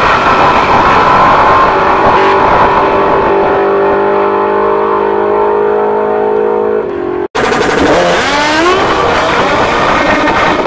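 Drag car's engine at full throttle, running steadily down the strip away from the start line. It cuts off suddenly about seven seconds in, and drag motorcycle engines take over, revving up with a rising pitch.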